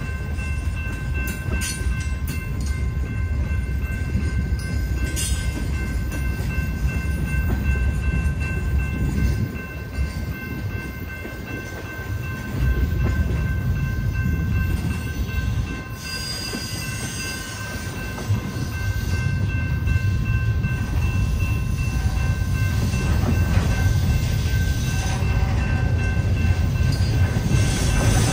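Freight cars rolling past at track side: a continuous low rumble of wheels on rail with some sharp clicks and clatter, easing briefly twice and building again in the second half. Steady high ringing tones sound throughout, fitting the grade-crossing bell.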